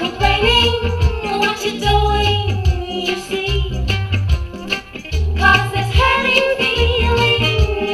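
A reggae record with a woman singing over a steady, bouncing bass line, played on a Hacker RG16 record player.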